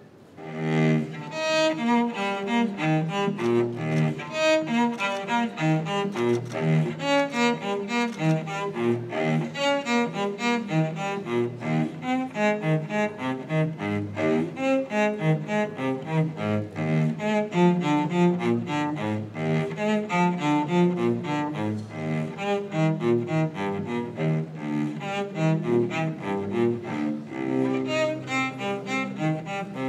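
Instrumental music led by bowed strings, cello-like, playing fast runs of short notes. It starts abruptly about half a second in.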